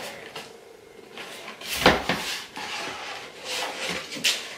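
Cardboard packaging being handled: box flaps folded open and a cardboard gift box slid out, rubbing and scraping against the carton, with the loudest scrape about two seconds in.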